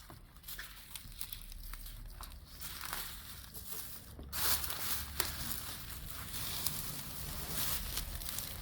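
Rustling and crinkling handling noises with scattered light clicks, a little louder in the second half.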